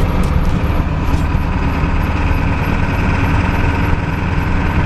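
Pickup truck driving: a steady low engine rumble with road noise.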